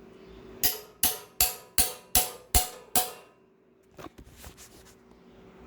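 Hammer striking a close-fitting rod driven into the bread-packed pilot bearing bore of a crankshaft: six sharp, ringing metal blows about 0.4 s apart, then a few light taps. The bread is being forced in to push the old pilot bearing out hydraulically.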